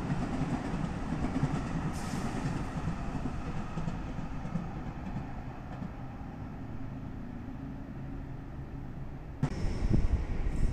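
Aonami Line 1000 series electric train running past on the tracks, a steady rumble that slowly fades. About nine seconds in the sound cuts abruptly to a louder mix with heavy low thumps.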